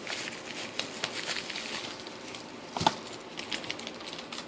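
Small hard parts being handled on a workbench: scattered light clicks and taps, with one sharper knock about three seconds in.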